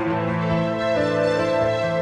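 Slow, soft background music of sustained held chords, the chord changing about a second in.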